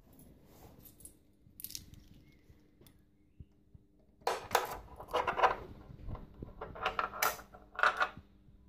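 Bunch of keys jangling and clinking at a Triumph Tiger 800's ignition switch, in several bursts over the last four seconds, ending as the ignition comes on.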